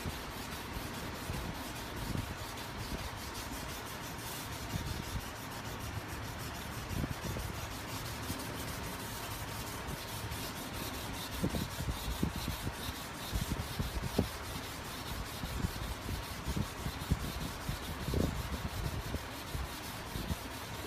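Hand wet-sanding a car's painted panel with sandpaper on a sanding block: steady back-and-forth rubbing of abrasive on wet paint, with heavier strokes in the second half.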